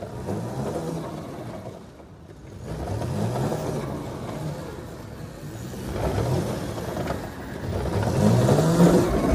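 Go-kart motor running on the track, its pitch climbing again and again as the kart speeds up between the corners.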